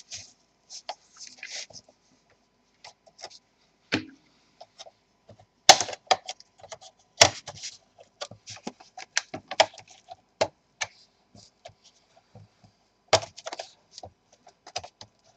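Plastic clicks and snaps from an Alienware M14x laptop's plastic casing being pried at with a plastic pry tool, its clips working loose. The clicks come in irregular runs, with a few sharp, louder snaps about six, seven and thirteen seconds in.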